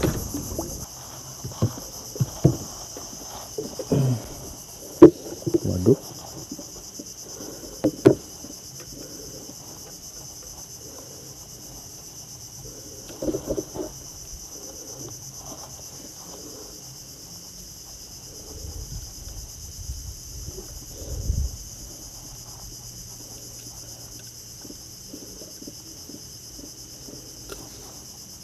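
A steady, high insect chorus runs throughout. Over it come a few sharp knocks and short thumps in the first eight seconds, with a few softer ones later, as a freshly caught fish is handled and unhooked with pliers in the wooden boat.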